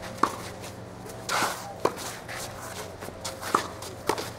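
Tennis rally: four sharp pops of the ball off racquet strings, spaced about a second and a half apart, with a shoe scuffing on the court just before the second.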